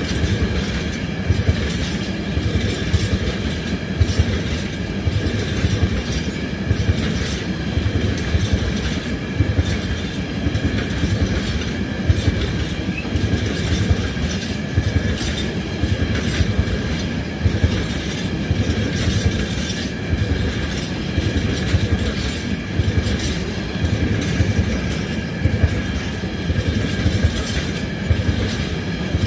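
Freight train wagons rolling past, their wheels clicking over rail joints in a steady, unbroken run, with faint high steady tones of wheel squeal above the noise.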